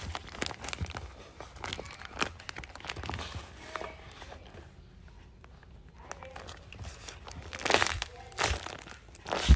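Paper and tape crinkling as a handmade paper squishy is handled and squeezed: irregular crackles, with a few louder crunches near the end.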